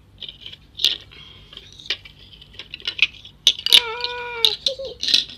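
Hard plastic toy figures clicking and knocking on a tiled floor as they are moved about by hand, in a run of short sharp taps. About four seconds in, a child's voice gives one drawn-out pretend-monster call of nearly a second.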